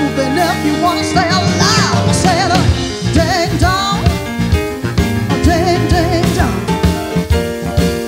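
Live band music: a woman singing lead with strong vibrato over drum kit, electric bass and keyboard.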